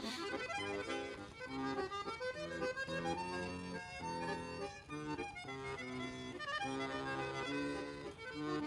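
Instrumental background music: a bouncy tune of short held notes and chords in a steady rhythm.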